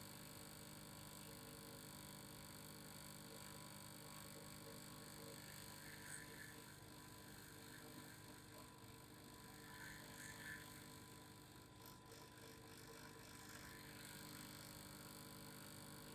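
Faint steady hum of a vibration sound, several steady tones held without change, with a few soft faint ticks here and there.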